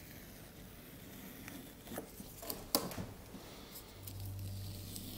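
Masking tape being peeled off watercolour paper: a faint peeling with a few small, sharp clicks.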